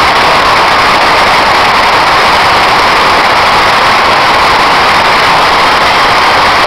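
Full football stadium crowd making a loud, steady wall of noise, cheering and singing merged together.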